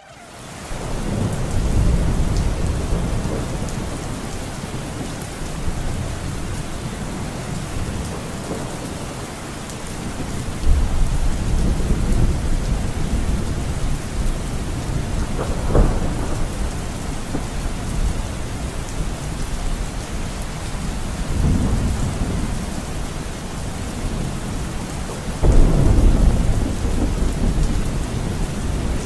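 Steady rain with thunder rolling in several times, low rumbles that swell up suddenly and die away; the loudest roll comes near the end.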